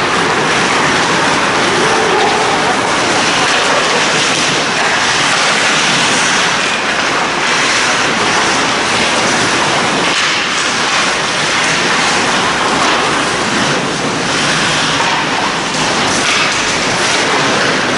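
Steady loud noise of an ice hockey game under way in an indoor rink: skates cutting the ice, with faint scattered clicks of sticks and puck.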